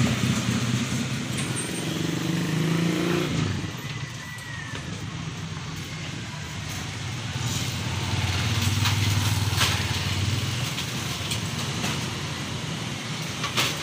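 Motor vehicle engines passing on the street: one runs and fades out about three seconds in, and another passes later. A few light knocks come as the framed glass door panels are handled.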